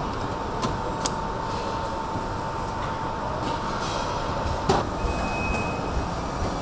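Assembly-line factory noise: a steady rumble of machinery under a thin, steady high tone. There are a few sharp clicks, and a louder clunk about three-quarters of the way through, where the tone cuts off.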